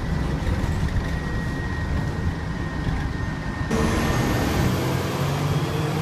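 2014 Gillig Advantage city bus running, heard from inside the cabin as a steady low engine rumble with a faint high whine. About three and a half seconds in, the sound cuts abruptly to louder, hissier street traffic noise.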